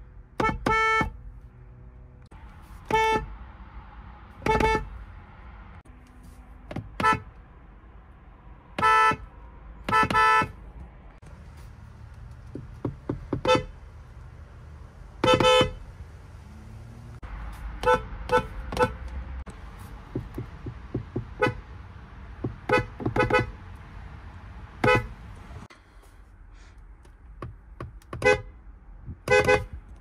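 Horns of several different Kia cars sounded by hand one after another: a series of short pitched honks, some single, some in quick pairs, with a fast run of brief taps in the middle. Each honk is a clear beep with a strong overtone stack.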